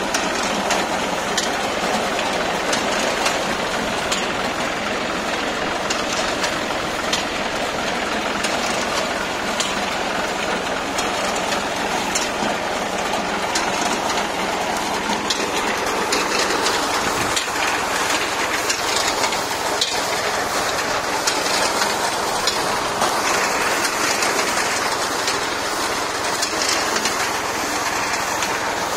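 Tractor-mounted reaper cutting standing wheat: the tractor engine running steadily under the reaper's dense mechanical clatter, with many sharp ticks and rattles from the cutter bar and conveyor.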